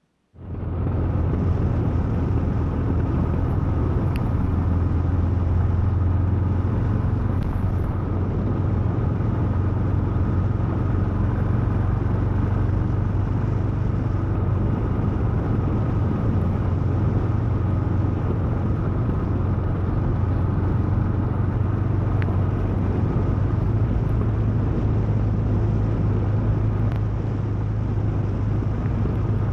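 Royal Enfield Himalayan's 411 cc single-cylinder engine running steadily under way, heard from the bike-mounted camera with road and wind noise. It cuts in suddenly just after the start and holds an even, low hum throughout.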